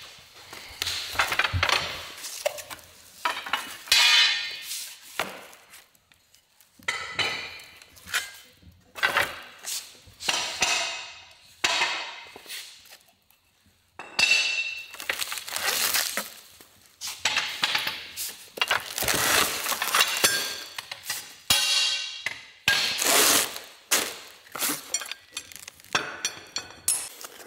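Metal parts of a hunting tower blind clinking and clanking as they are handled and set down, in irregular bursts with two short quiet gaps.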